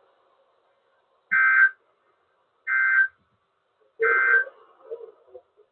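Emergency Alert System end-of-message data bursts: three short bursts of two-tone digital warble, each about half a second long and about a second and a half apart. They mark the end of the alert.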